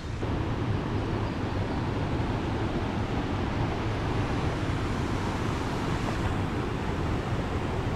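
Steady rush of flowing creek water at a swimming hole, an even noise with a heavy low rumble.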